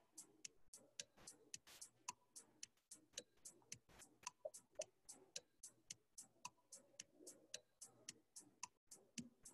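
Faint, rapid, even ticking, about four to five ticks a second, with a few faint short notes between: a quiz game's countdown timer music.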